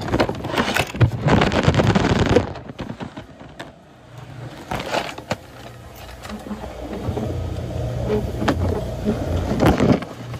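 A phone riding in a tray through an airport X-ray baggage scanner, recorded by its own microphone. There is loud rubbing and scraping for the first couple of seconds, then a steady low hum from the conveyor, with a few knocks.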